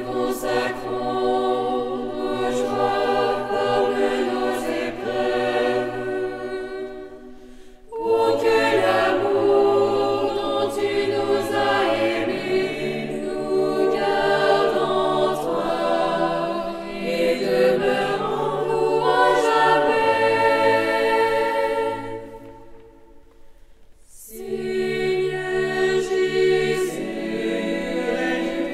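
Mixed choir of men's and women's voices singing a French sacred song a cappella, in long phrases with two short breaks, about 8 seconds in and near 23 seconds, ringing in a church's resonant acoustics.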